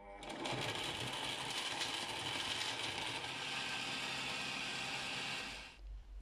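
Countertop blender grinding chunks of coconut with water into a pulp: the motor starts, runs steadily with the churning contents, and cuts off near the end.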